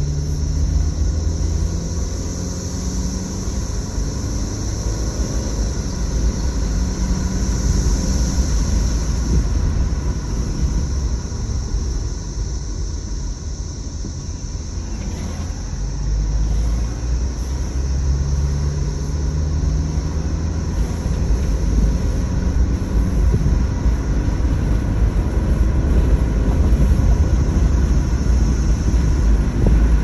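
Chorus of periodical cicadas, a steady high-pitched drone, heard from inside a moving car over the rumble of its engine and tyres; the engine's pitch rises twice as the car picks up speed.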